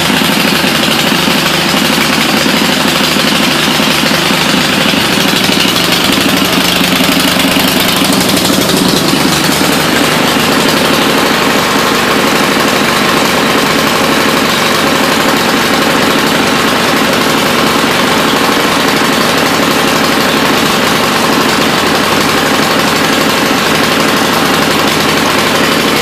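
SnoTek snow blower's small gasoline engine running steadily just after starting on the first pull once primed, its note shifting about nine seconds in. It is running on fresh fuel with Sea Foam after a fuel-system repair.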